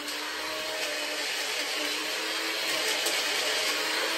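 Tiny electric blender running steadily as it crushes Oreo cookies, a steady motor hum whose pitch steps up slightly about two seconds in.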